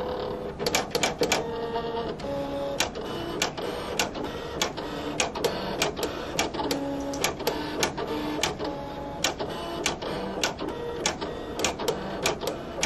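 Silhouette Cameo electronic cutting machine cutting cardstock. Its motors drive the mat and blade carriage in short whining tones that keep changing pitch, over frequent sharp clicks.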